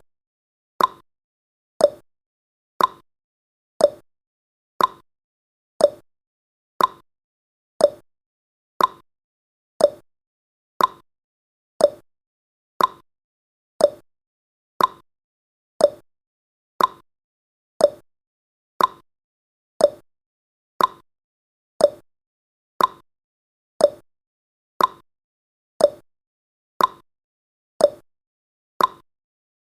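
Countdown timer's clock-tick sound effect: short sharp ticks, one a second, evenly spaced.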